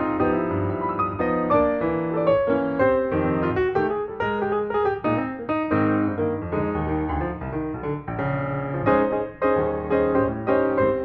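Background piano music: a light melody played over a steady chord accompaniment.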